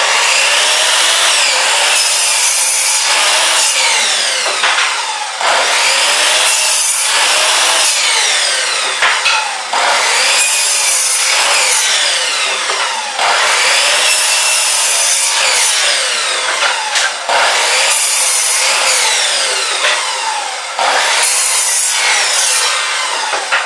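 Saw cutting through wood: a loud, continuous rasping with sweeping rises and falls in pitch and a few brief dips in level.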